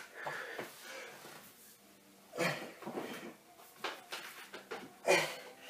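A man's short, effortful breaths and the rustle of movement as he gets down into a plank with his feet on a chair, with two louder breaths, one about halfway through and one near the end.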